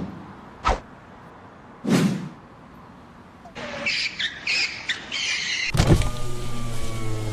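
Cartoon sound effects: two short swishes, then a run of short bright noises. About six seconds in there is a loud hit, followed by a steady low hum and a held, slightly falling tone, in the manner of a vehicle arriving.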